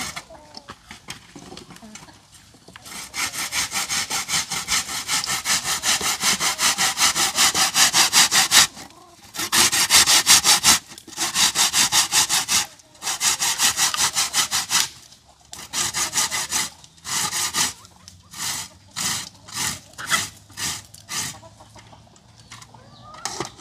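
Produce being grated by hand on a grater: fast, even scraping strokes, about four or five a second, in runs broken by short pauses, starting about three seconds in.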